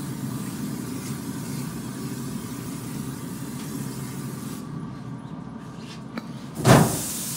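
Aerosol olive-oil cooking spray hissing onto hot pellet-grill grates for about four seconds, over a steady low hum. Near the end steaks land on the grates with a sudden loud sizzle that keeps going.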